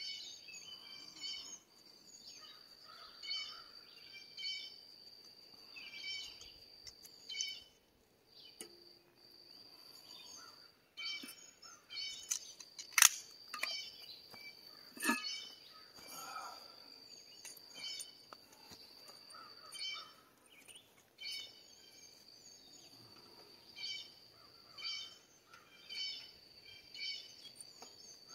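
Rural outdoor ambience: a steady high-pitched insect drone, with a bird calling in short phrases repeated about once a second. A couple of sharp clicks come about halfway through.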